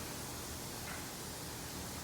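Steady faint hiss of background room noise, with one faint brief tick about a second in.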